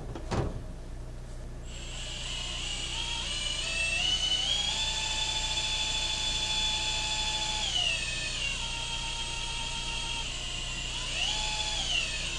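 Electric drill driving a priming tool to spin a rebuilt Ford V8's oil pump and build oil pressure, heard from inside the truck's cab. The drill's whine rises in pitch, holds steady, drops about eight seconds in, then speeds up and slows in short spurts near the end. A single knock comes just before the drill starts.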